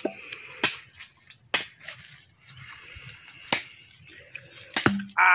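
Five or so sharp clicks or knocks at irregular intervals, with a short low hum from a voice near the end.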